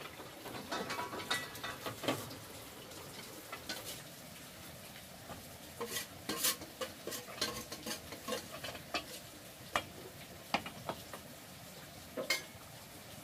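Food frying in a pan with a steady sizzle, while a utensil stirs it and clinks and scrapes against the pan in scattered bursts.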